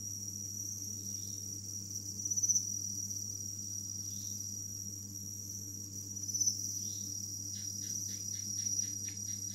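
Crickets singing: a steady high-pitched trill that swells a few times, over a low steady hum. A short run of faint ticks comes near the end.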